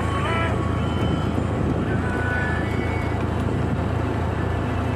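Motorcycle running steadily at riding speed along a dirt track, with wind and rumble from the ride. A few short high whistles sound near the start and again about two seconds in.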